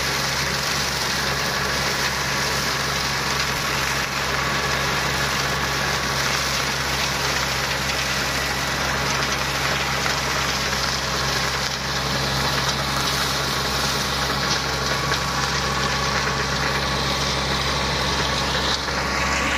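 Engine of a flail mower converted from a tracked snowblower running steadily, with a brief rising whine near the end.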